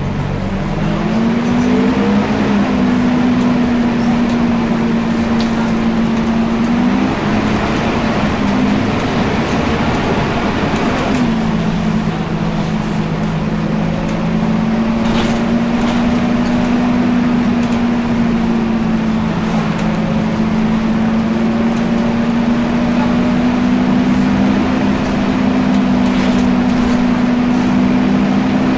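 Volvo B10BLE bus diesel engine running with its cooling fan on: a loud, steady whine over the engine note. The whine rises in pitch over the first two seconds, then holds steady, with brief dips about 7 and 11 seconds in.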